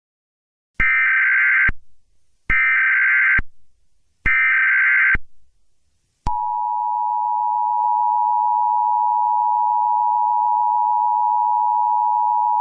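Emergency Alert System tones: three short bursts of digital data noise, about a second each, in the manner of the SAME header that opens an alert. About six seconds in, the steady two-tone EAS attention signal starts and holds.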